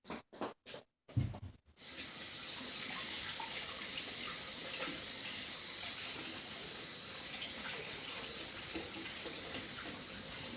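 A few short knocks, then a water tap turns on about two seconds in and runs steadily into a sink as hands are washed.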